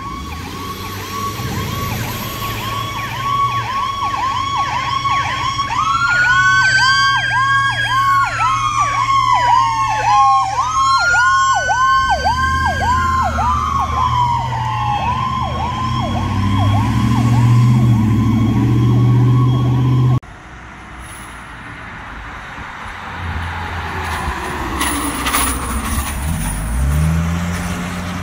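Emergency vehicle electronic sirens on responding fire department units: a fast-cycling yelp with two slow wail sweeps rising and falling over it, and a vehicle engine running underneath. After an abrupt cut it turns quieter, with a falling siren tone, and near the end a deep tone rises quickly and holds.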